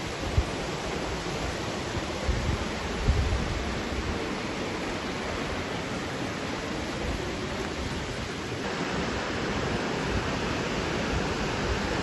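Steady rush of a rocky mountain creek's running water, with a few low thumps on the microphone near the start. The rush turns brighter about two-thirds of the way through.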